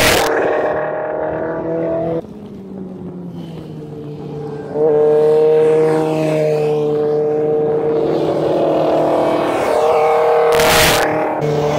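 Sport motorcycle engines running hard through a curve, their steady notes dipping about two seconds in and picking up sharply again near five seconds. Near the end a bike passes close with a brief rush of noise.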